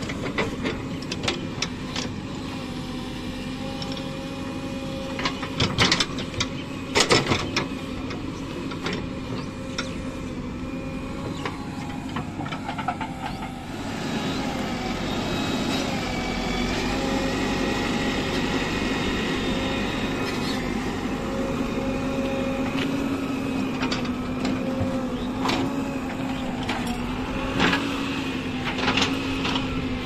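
JCB 3DX backhoe loader's diesel engine idling steadily, with a few sharp knocks about six to seven seconds in. The sound gets a little louder about fourteen seconds in.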